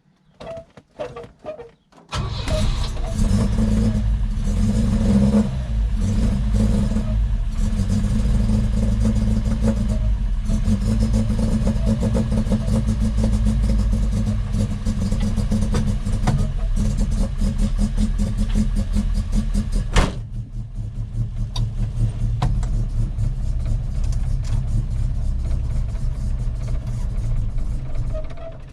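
1966 Volvo 122S Amazon's B18 four-cylinder engine turning over for a couple of seconds, then catching and running really rough and uneven, with one sharp crack about twenty seconds in. The owner thinks the engine is not getting fuel.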